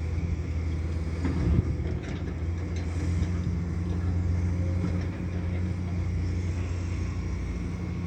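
Heavy diesel engine of an excavator loading a dump truck, running steadily with a low hum. A few short knocks come about a second and a half in.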